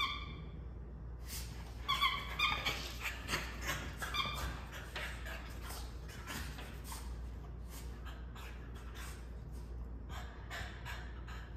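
French bulldog puppies play-wrestling: a short high-pitched cry at the start and a quick cluster of cries about two seconds in, then a steady run of short, breathy puffs and scuffles as they tussle.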